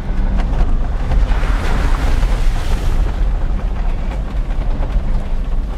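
Force Gurkha Extreme's diesel engine running as the 4x4 drives slowly past close by on a dirt track, with a heavy low rumble and a hiss of tyres on gravel that swells in the first half.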